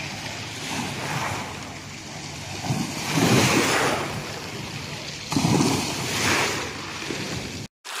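Sea waves washing up onto the beach, swelling louder twice, with wind buffeting the microphone.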